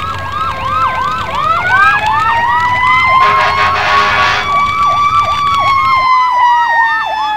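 Emergency vehicle sirens: a fast repeating yelp, about three swoops a second, together with a slower wail that rises and then falls toward the end. A horn blast sounds about three seconds in.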